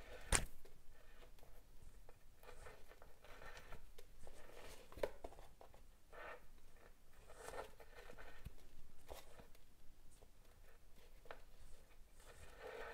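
Waxed polyester macramé cords rasping and rustling as they are drawn through and pulled tight into small knots, in short strokes, with a sharp click about a third of a second in.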